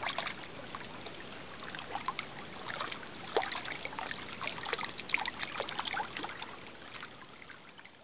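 Small waves lapping and trickling against a reedy lake shore: a steady wash of water with many small irregular splashes, fading out near the end.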